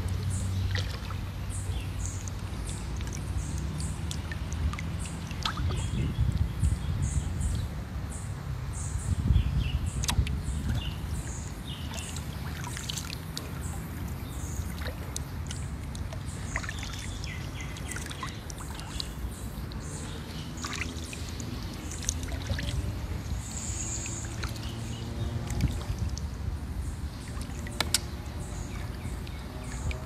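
A kayak being paddled on a calm river: water trickling and dripping off the paddle, under a steady low rumble on a phone microphone. Birds chirp high and often, and a couple of sharp clicks stand out.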